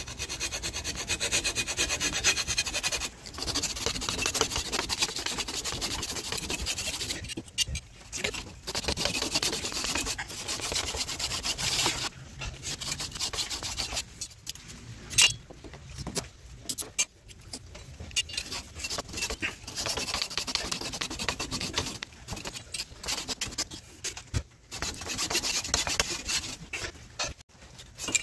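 Japanese double-edged pull saw (ryoba) cutting in quick back-and-forth strokes, in runs of a few seconds broken by short pauses.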